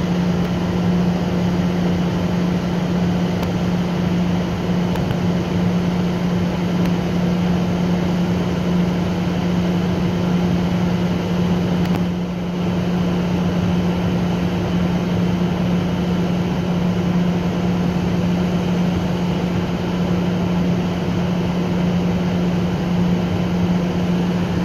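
Diesel-electric locomotive idling, a steady deep engine hum with a constant drone, dipping briefly about halfway.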